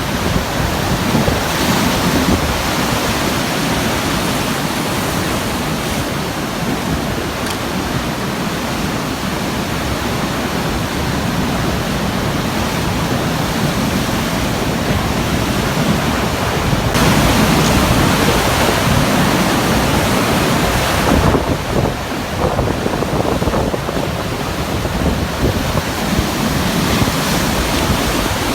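Heavy sea surf breaking against a rocky basalt shore in a continuous rushing wash, with a louder surge of crashing water about seventeen seconds in that lasts several seconds.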